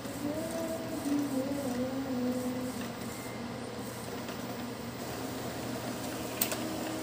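Epson L3110 inkjet printer printing a nozzle check page: the print head carriage shuttles and the sheet feeds out, ending in a sharp click about six seconds in. A faint wavering tune rides over it for the first few seconds.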